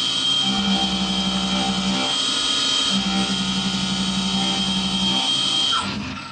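Small CNC vertical mill (SkyfireCNC SVM1-VMC) cutting aluminium with a carbide endmill: a steady high spindle whine, with a lower hum that comes and goes in passes about every two and a half seconds. Near the end a short falling tone sounds and the whine stops as the spindle lifts away from the part.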